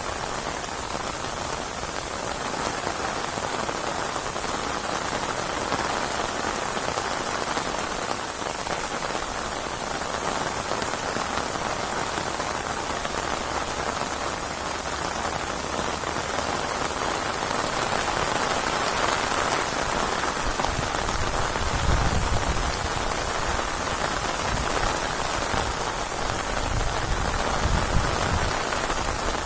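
Steady heavy rain falling, a dense even hiss of drops, with a low rumble swelling twice in the last third.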